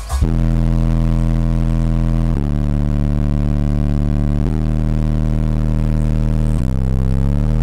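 Three 18-inch DC Audio Level 5 subwoofers in a car playing deep, sustained bass notes, heard from outside the car. The note changes about every two seconds, and near the end the pitch starts sliding upward.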